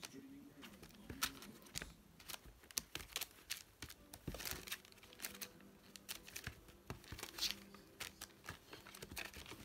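Newspaper lining a plastic pet carrier crinkling and crackling in irregular bursts as a kitten scrambles about on it chasing her tail.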